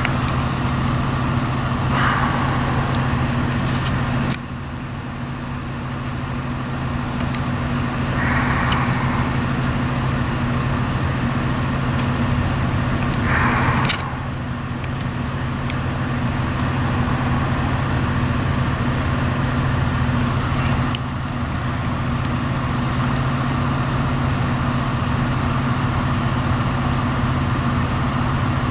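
A vehicle engine idling, a steady low drone, with a few brief faint sounds on top.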